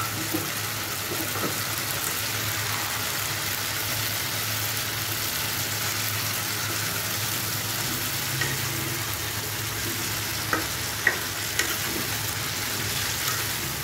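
Pangas fish and potato sticks sizzling steadily in a wok while a spatula stirs them, clinking against the pan three times near the end.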